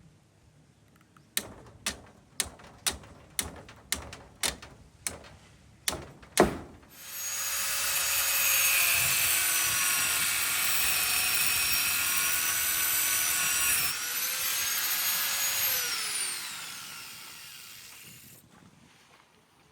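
A series of about eleven sharp knocks, roughly two a second. Then a handheld power tool runs with a whine for about nine seconds, wavers once, and is switched off, its pitch falling as it spins down.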